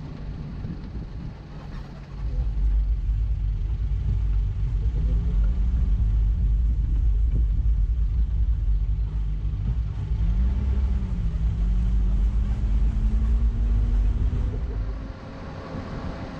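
Car engine running while driving off-road, its pitch climbing a couple of times and higher near the end. A heavy low rumble sets in about two seconds in and drops away shortly before the end.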